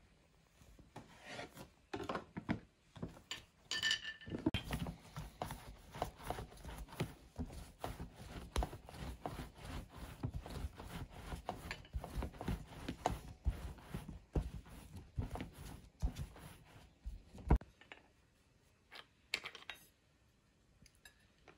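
Quick, continuous rubbing and scraping strokes, many each second, that start about four seconds in and stop near the end, with a few faint taps afterwards.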